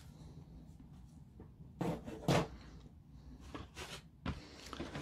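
Model-kit parts of resin and clear plastic being handled and set down on a table: two light knocks about two seconds in, then a few fainter clicks.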